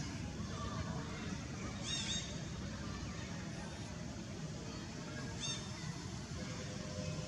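Steady outdoor background rumble, with two brief high-pitched squeaks, one about two seconds in and one about five and a half seconds in.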